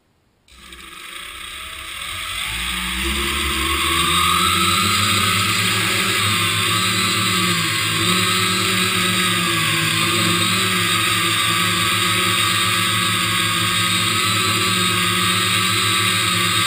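A hexacopter's six electric motors and propellers spin up from rest about half a second in, their whine rising in pitch over a few seconds as the craft lifts off. The whine then runs steadily with small wavers in pitch as it flies.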